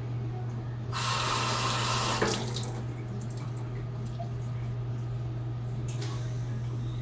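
Water running from a tap for about a second and a half, with a knock partway through, then running again more softly near the end.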